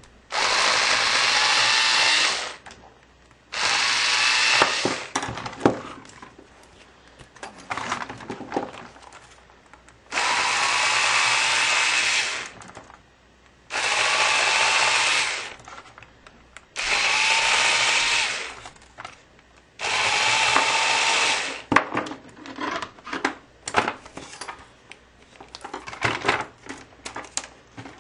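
Electric screwdriver whirring in six bursts of about two seconds each, backing out the small screws of a laptop LCD panel's metal frame. Clicks and rattles of screws and metal parts being handled come between the bursts.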